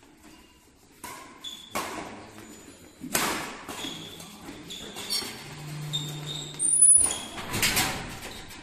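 Badminton doubles rally: rackets strike the shuttlecock with several sharp hits, the loudest about seven seconds in. Short high squeaks of shoes on the court mat come between the hits, and each hit echoes in the large hall.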